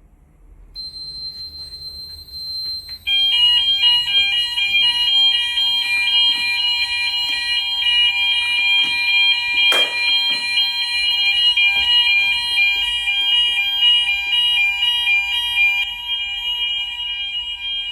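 Fire alarm sounding after test smoke. A single high tone starts about a second in, and about three seconds in a louder alarm of alternating high tones joins and keeps going. There is one sharp knock near the middle.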